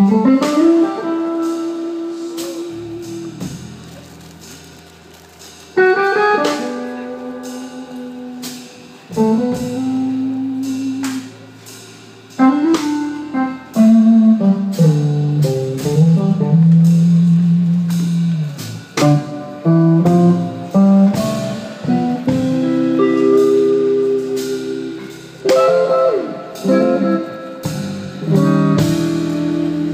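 Live blues band: an electric guitar solo of single held notes, several bent up into pitch and wavering, over a drum kit.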